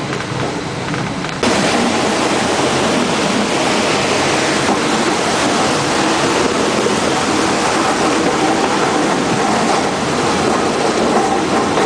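Rushing mountain river water tumbling over rocks in rapids: a loud, steady rush that comes in suddenly about one and a half seconds in.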